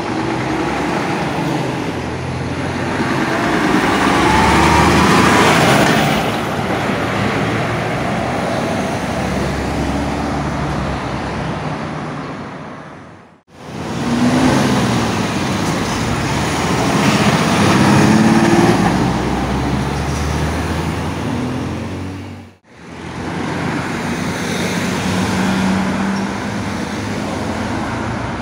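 Road traffic: heavy lorries and cars passing on a main road, the diesel engine of each lorry rising and fading as it goes by, including a DAF gritter lorry. The sound breaks off abruptly twice.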